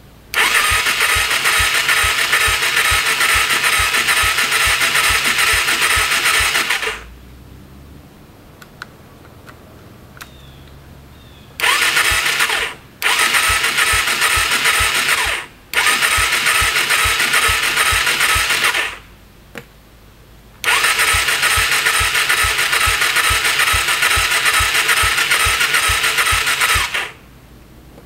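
Suzuki DR250SE's electric starter cranking the cold single-cylinder engine, choke on, in five separate bursts with a regular chugging pulse, the first and last about six seconds long, the middle ones short. The engine never fires: the spark plug is dry, so no fuel is reaching it.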